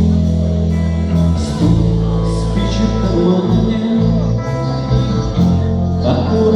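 Instrumental rock-band music with guitar, playing a steady passage of sustained chords that change every second or so.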